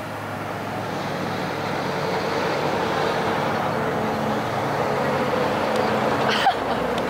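Steady outdoor rushing noise, swelling slightly over the first few seconds, with a brief knock about six and a half seconds in.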